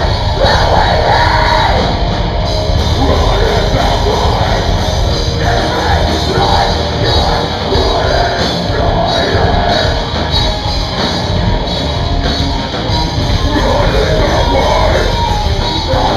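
Rock band playing live and loud, with a singer's vocals over the band.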